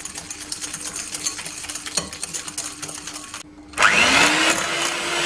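Egg yolks and sugar being beaten by hand in a glass bowl: fast, dense clicking of the utensil against the glass. After a brief gap about three and a half seconds in, an electric hand mixer starts, its motor whine rising quickly in pitch and then running steadily as the beaters whip the yolks.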